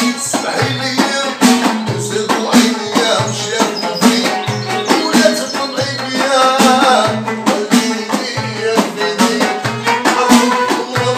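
Moroccan folk ensemble playing live: a violin held upright on the knee and an oud carry the melody over frame drums and clay goblet drums. The drums keep a steady rhythm of regular deep beats under quick, sharp strokes.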